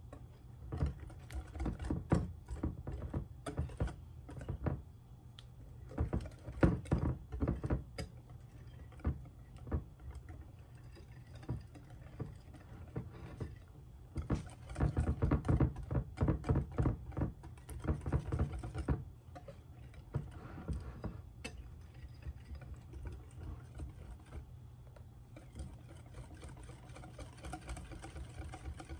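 Wire whisk beating thin clafoutis batter of eggs, sugar, flour and milk in a glass bowl, its wires clicking rapidly against the glass. The clicking comes in bursts, about a second in, around six seconds in and from about fifteen to nineteen seconds, with softer stirring between. The batter is being whisked until smooth, with no lumps of flour left.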